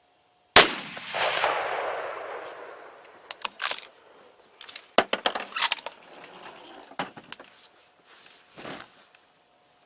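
A single rifle shot about half a second in, its report rolling away in an echo that fades over about two seconds. It is followed by a scatter of sharp metallic clicks and knocks.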